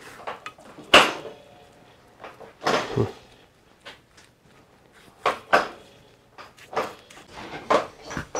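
Irregular knocks and clatters of hard objects, about a dozen scattered through, the sharpest about a second in.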